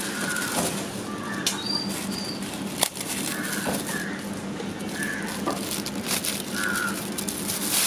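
Aluminium foil crinkling and rustling as it is pressed and folded over the mouths of clay pots, with a couple of sharp crackles.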